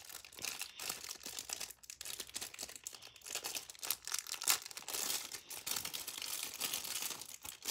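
A thin clear plastic wrapper being crinkled and torn open by hand, a continuous run of small crackles.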